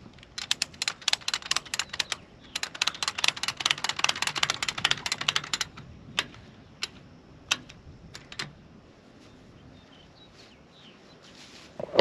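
Yellow retractable ratchet strap's ratchet clicking rapidly in two long runs, then a few single clicks, as the strap is drawn tight over a round hay bale.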